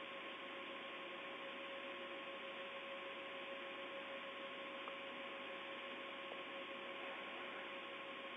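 Steady hiss of an open air-to-ground radio voice channel with no one talking, with a faint steady hum in two pitches.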